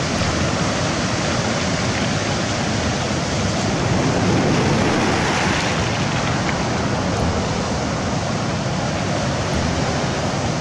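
Sea surf washing steadily, with wind on the microphone; the wash swells a little louder about four to five seconds in.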